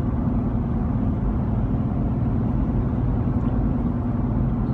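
Steady road and engine noise of a car driving at speed, heard from inside the cabin: an even low rumble with a constant hum.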